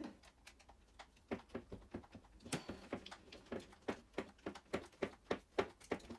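Hand screwdriver driving a screw into the RC truck's front-end parts: a string of small, irregular clicks, about two or three a second, as the screw is turned in.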